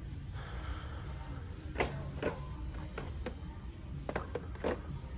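A few scattered light clicks and taps, like packaged toy cars being handled and moved on their pegs, over a steady low hum of store background.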